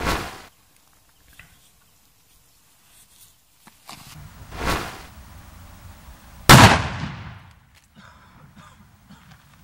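Tape-wrapped "Russian firecracker" going off with one loud, sharp bang about six and a half seconds in, trailing off over about a second. Two shorter bursts come before it, one right at the start and one about four and a half seconds in.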